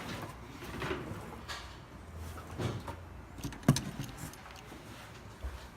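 Scattered knocks and light clatter of objects being handled, with one sharper knock a little past halfway.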